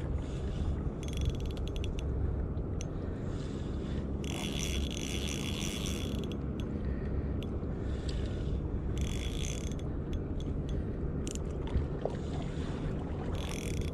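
Shimano Stradic Ci4+ 1000 spinning reel whirring and clicking in repeated spells of a second or two as a hooked fish is fought on light tackle, over a steady low rumble.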